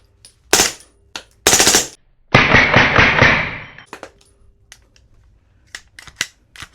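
Suppressed Springfield Kuna 9mm firing subsonic 147-grain rounds through a forced-reset trigger and a Precision Armament 360 Ti suppressor. One shot comes first, then a short fast burst, then a rapid string of about a second and a half that empties the magazine. A few light clicks follow.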